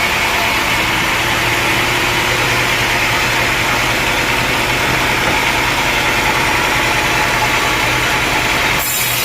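Sawmill machinery running steadily: a constant motor hum under a loud, even rushing noise. The sound changes abruptly near the end.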